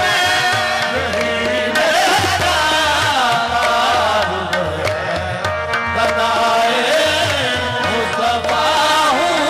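Qawwali music: harmoniums holding and moving through notes under a tabla rhythm, with a singing voice bending through the melody.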